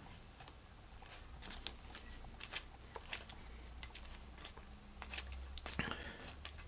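Faint clicks and light taps of dent puller parts being handled and fitted together, scattered irregularly, with a short scrape near the end.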